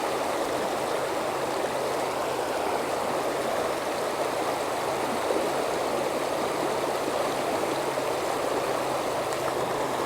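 Small rocky river flowing, a steady rushing and gurgling of water over stones.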